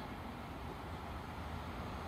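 Steady low rumble of a freight train hauled by an electric locomotive, approaching from far off, heard under outdoor background noise.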